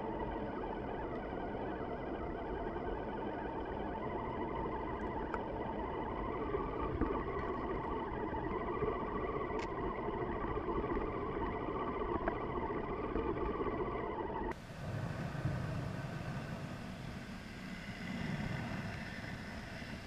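Electric drive of a three-motor tracked RC snowcat running steadily as it crawls through deep snow, a motor and gear whine over track and snow noise, heard up close from a camera on the vehicle. About fourteen seconds in the sound cuts to a quieter, deeper recording of the same vehicle from off board.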